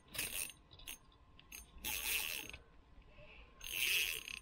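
Fishing reel clicking in several short ratcheting bursts while a hooked pike is played through the ice hole.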